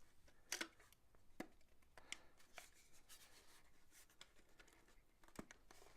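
Faint handling of a USB power cable and plug being fitted into a USB power adapter: a few small sharp clicks, irregularly spaced, over light rubbing and rustling.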